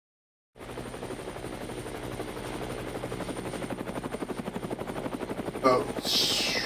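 Helicopter rotor sound beating at an even pace of about six or seven thuds a second, starting after a moment of silence. Near the end there is a brief louder sound and a hiss.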